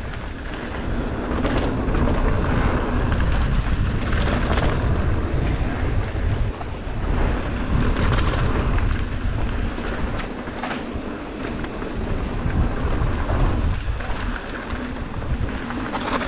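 Mountain bike riding down a dirt trail: wind buffets the microphone over a steady low rumble of tyres and bike, with scattered knocks and rattles as it hits bumps.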